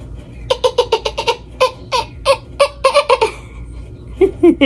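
High-pitched giggling laughter: a quick run of short bursts lasting about three seconds, followed by a brief voice near the end.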